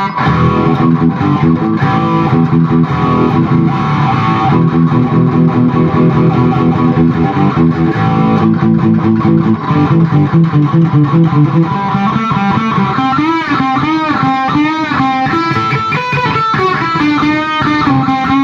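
Electric guitar played through a Zoom G1X Four multi-effects pedal on its untweaked out-of-the-box settings, into a Peavey 6505+ combo amp, with no lead channel engaged. For the first ten seconds or so it plays a dense chordal riff; from about twelve seconds in it moves to single notes that bend and waver in pitch.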